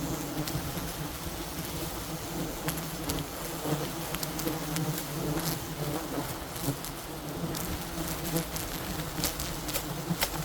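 A swarm of wild bees buzzing steadily, many at once, with scattered sharp clicks and crackles over it, several close together near the end.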